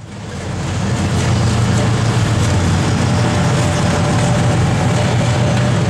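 Twin-section 2TE10M diesel locomotive passing close, its 10D100 two-stroke opposed-piston diesel engines running with a steady deep drone. The sound swells up over the first second.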